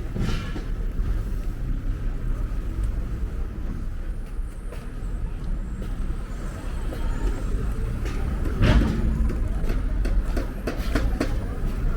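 Outdoor street noise: a steady low rumble, with a louder burst of noise about nine seconds in.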